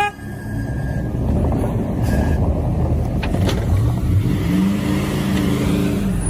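Off-road vehicle engine running hard under load, with a rumbling, noisy background. Near the end it revs up and eases back down.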